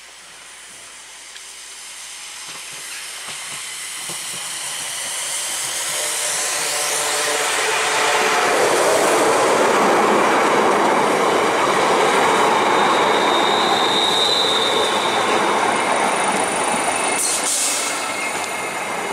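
ScotRail Class 380 Siemens Desiro electric multiple unit running in and slowing for the station. It grows steadily louder over the first eight seconds, with a falling whine as it comes alongside, then a brief high squeal about two-thirds of the way through.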